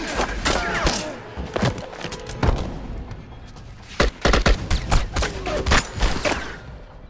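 Gunshots in a film shootout, fired in quick volleys. One cluster falls in the first two and a half seconds, then after a short lull a second volley comes from about four to six seconds in.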